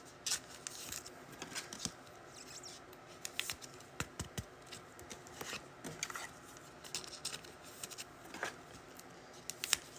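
Faint, scattered clicks and taps of trading cards being handled and slid past one another.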